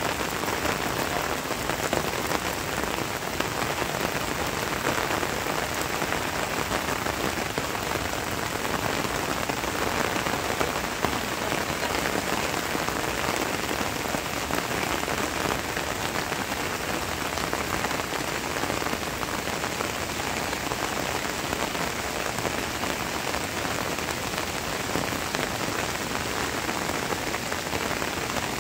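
Steady rain falling on wet rocks and stony ground, an even hiss of drops that does not let up.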